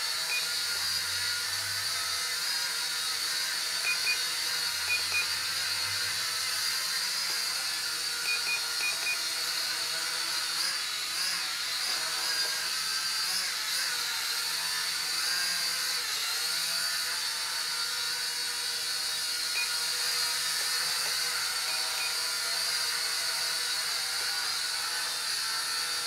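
Polaroid PL300 mini quadcopter hovering: a steady high whine from its small motors and propellers. A few short double beeps from the handheld controller sound in the first ten seconds as the forward trim is pressed to correct the drone drifting back.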